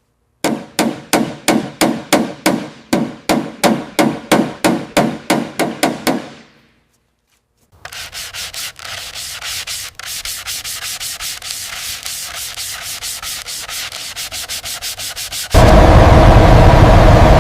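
Sanding by hand: regular back-and-forth scraping strokes, about four a second, stop after about six seconds. After a short pause, quicker and quieter rubbing strokes follow. Near the end, a much louder steady mechanical running noise cuts in.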